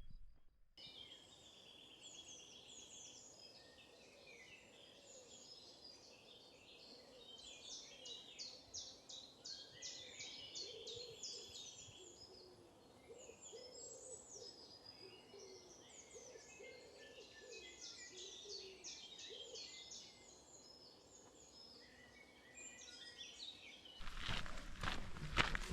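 Several wild songbirds singing together, a faint mix of chirps and quick rapid trills with some softer lower warbling notes. Near the end, loud footsteps start.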